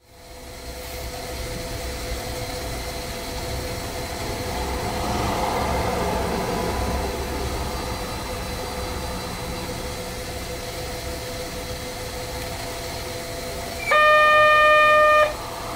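A 260 series narrow-gauge electric train standing at the platform, its onboard equipment giving a steady hum with a few held tones. About fourteen seconds in, a loud electric signal tone sounds for about a second and a half, then stops.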